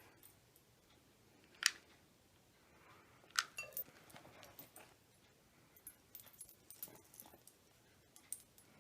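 Faint handling noises of crafting by hand: scattered sharp clicks and light taps with a soft rustle as material is coiled and fixed in place. The sharpest click comes under two seconds in, with a small cluster around three and a half seconds and several more between six and seven seconds.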